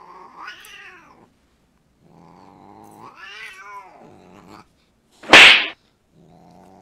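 Siamese cat yowling low and drawn out at a dog, two calls that rise and then fall in pitch. A sudden loud hissing burst comes about five seconds in.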